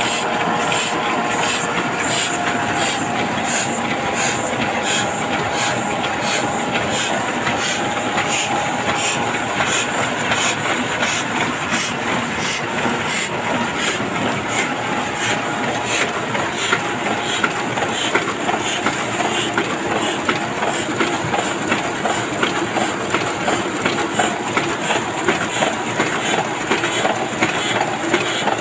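Heidelberg two-colour offset printing press running: a steady mechanical clatter with a regular beat of about two strokes a second over an even hiss.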